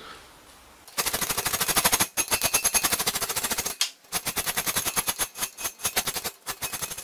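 Flat hand file rasping across the edge of a sheet-metal piece clamped in a bench vise: rapid, even strokes that start about a second in, with two short breaks.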